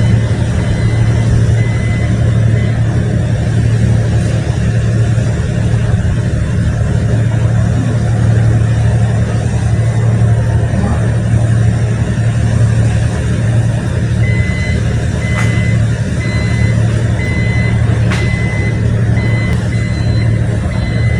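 Heavy construction machine's diesel engine running steadily with a deep drone, while a warning alarm beeps about once a second at the start and again from about two-thirds of the way through.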